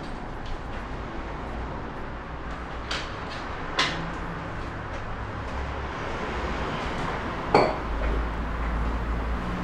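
A few sharp knocks and clinks of small objects being handled and set down on an office desk, three of them distinct, the loudest near the end, over a steady background rumble.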